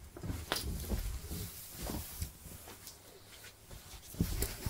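Quiet rustling of clothing, with scattered light knocks and low thumps, as a person pulls on a hoodie.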